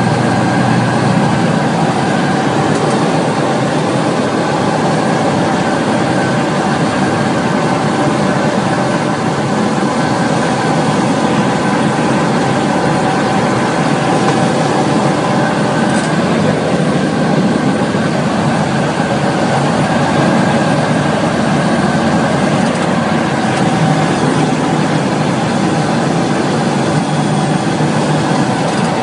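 Single-engine light aircraft's engine and propeller running steadily in flight, heard inside the cockpit as a loud, unchanging drone.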